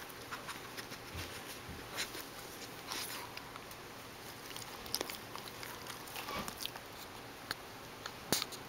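A Shih Tzu and a ferret scuffling at a ribbed flexible play tube: light, scattered scratches, rustles and clicks from paws and the tube's plastic ribs, with one sharper click near the end.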